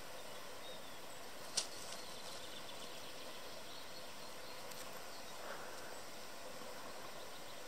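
Quiet lakeside ambience with faint bird calls, broken by one sharp click about one and a half seconds in.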